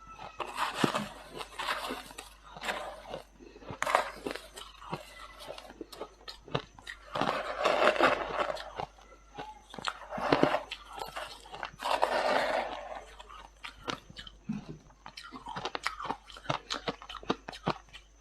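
A person biting and chewing mouthfuls of freezer frost: crackling crunches, with louder bursts of crunching every few seconds.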